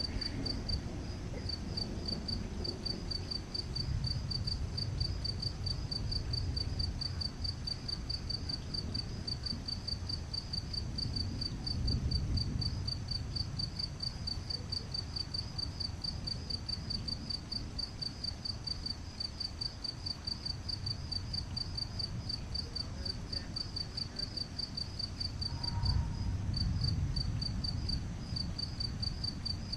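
Crickets chirping steadily in an even, fast pulse, about three chirps a second. Low rumbles of distant thunder swell up a few times beneath them, most strongly about twelve seconds in and again near the end.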